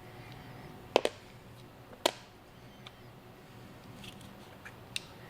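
A few sharp clicks and taps as the plastic housing of a jump box's battery switch is worked apart by hand: a double click about a second in, a sharper one a second later, then fainter ticks.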